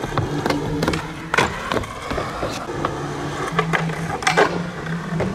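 Skateboard rolling on asphalt, with several sharp, irregular clacks of the board's tail and wheels hitting the ground and a ledge during tricks.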